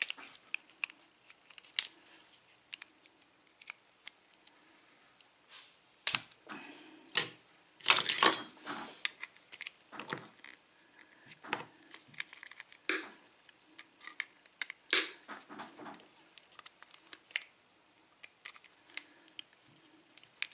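Small metal clicks, scrapes and clinks of pliers and a thin metal tool working at a lock cylinder, prying out a stuck retaining clip. The sounds are irregular, with the loudest run of scraping about eight seconds in.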